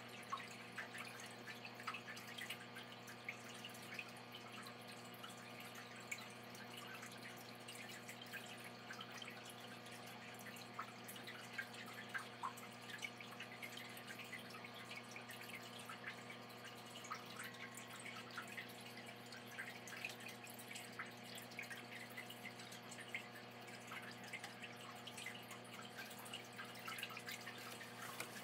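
Faint dripping and small irregular splashes of aquarium water as hands work in the tank, over a steady low hum.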